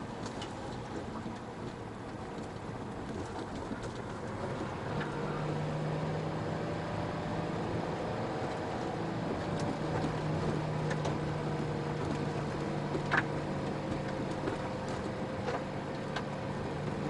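A car driving along an unpaved forest road: engine running, with a steady low hum that sets in about five seconds in, over the rumble of tyres on dirt and gravel. A few sharp clicks stand out, the clearest about 13 seconds in.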